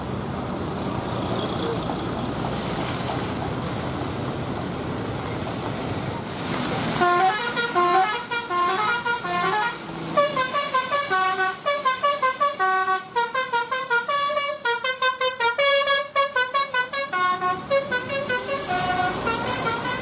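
Indonesian bus telolet horn playing a quick multi-note Basuri melody. It starts about a third of the way in, includes a fast run of short repeated notes, and stops near the end. Before it there is a steady hiss of heavy rain and traffic.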